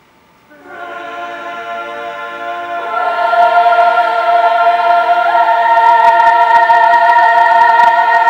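Choir singing long, held chords that swell about three seconds in, with a step up in the melody a little past five seconds.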